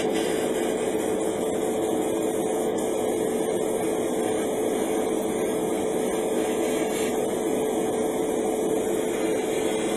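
Hobby spray booth extractor fan running with a steady hum and one constant tone, unbroken throughout.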